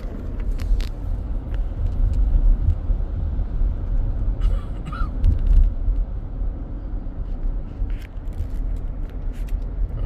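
Car in motion heard from inside the cabin: a steady low rumble of engine and tyres, with scattered light clicks and knocks.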